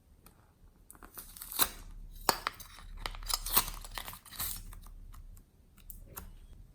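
Hands squeezing and stretching glossy slime, with sticky crackling and popping. It starts about a second in, is dense for a few seconds, then thins to a few scattered pops.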